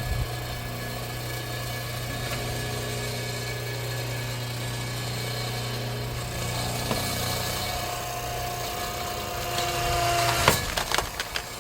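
Engine-driven hydraulic log splitter running steadily as its ram presses into a knotty log. A higher whine joins about eight seconds in, then the wood gives with a sharp crack about ten seconds in, followed by a few smaller snaps.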